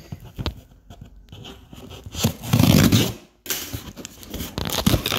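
A knife slitting the packing tape along a cardboard shipping box, with the tape tearing and the blade and fingers scraping the cardboard in irregular strokes. It is loudest in the middle and again in the last couple of seconds.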